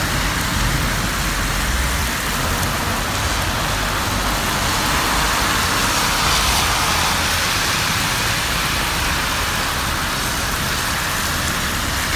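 Heavy rain falling steadily in a constant hiss, with car tyres swishing on the wet road as traffic passes, swelling about six seconds in.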